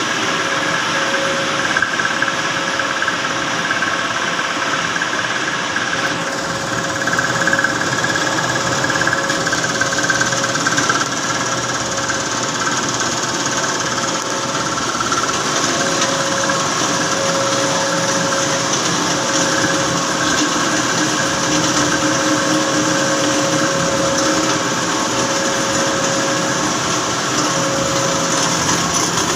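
Chiller plant machinery running steadily: a constant mechanical drone with several steady whining tones over a hiss.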